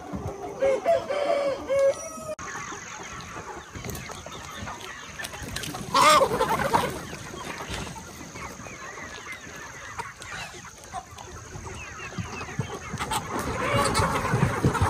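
A flock of young chickens clucking and calling, with one loud crow about six seconds in. The calling grows busier and louder near the end.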